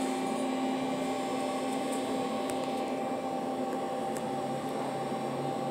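Steady hum inside an elevator car, with a few faint clicks.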